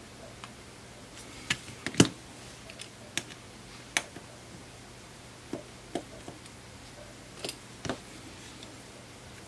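Sharp, scattered clicks and taps of small repair tools working on an opened iPhone 6S, about nine in all, the loudest about two seconds in.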